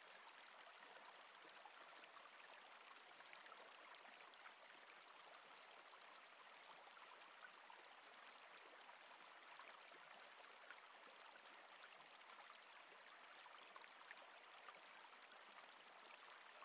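Faint, steady babble of a river flowing over rocks, with small splashes and trickles.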